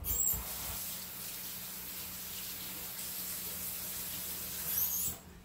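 Kitchen faucet running in a steady stream. It is turned on at the start and shut off about five seconds in, with a short squeak just before it stops.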